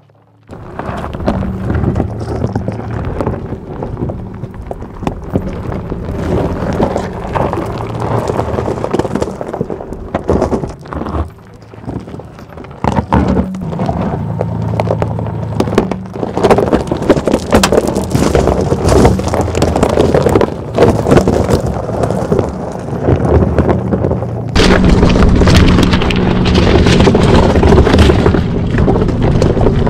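Mercedes G580 electric SUV crawling over a rocky track: its tyres crunch and rumble over loose rock and gravel, with irregular cracks and knocks. It gets louder and brighter about three-quarters of the way through.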